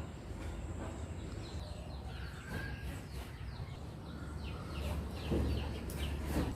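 Small birds chirping in many short, quick calls over a low steady rumble, with a few sharp knocks about two and a half, five and six seconds in.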